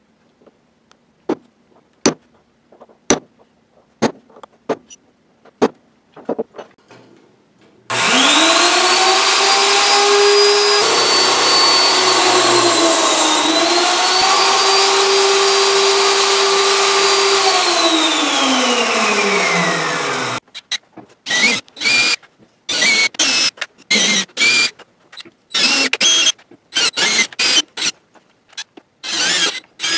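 Light sharp taps of a marking tool on an aluminum flat bar, then a small drill press motor starts and runs with a steady whine that dips once and recovers before spinning down. Irregular metal clatter and clinks follow as parts are handled.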